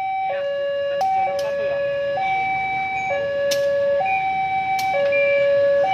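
Railway level-crossing warning alarm sounding an electronic two-tone signal, a higher and a lower tone alternating about once a second, as a locomotive approaches. A few sharp clicks are heard over it.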